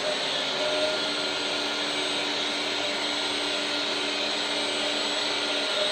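Electric hydraulic pump of a 1/14-scale RC hydraulic excavator running steadily, a constant motor whine over hiss.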